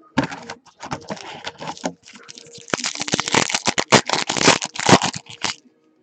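The foil wrapper of a trading-card pack being torn open and crinkled by hand, in irregular bursts with many sharp crackling clicks, loudest in the second half.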